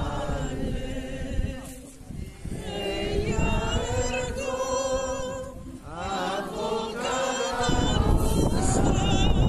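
A crowd of people singing a hymn together, with a low rumbling noise rising under the voices from about eight seconds in.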